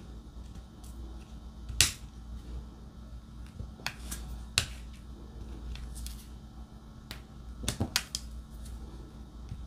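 Diamond painting drill pen tapping resin drills onto the sticky canvas: short, sharp clicks at an irregular pace, about ten of them, the loudest about two seconds in.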